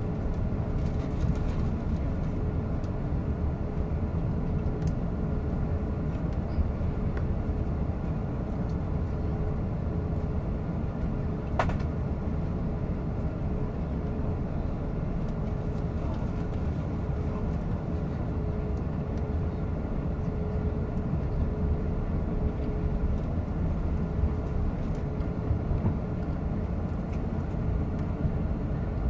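Airbus A380 cabin noise while taxiing: a steady low rumble of the engines at taxi power, with a faint steady hum. A single short click about eleven seconds in.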